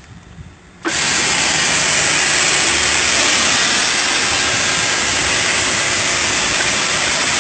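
Car-wash pressure washer spraying a high-pressure water jet. It starts suddenly about a second in and then holds a loud, steady hiss.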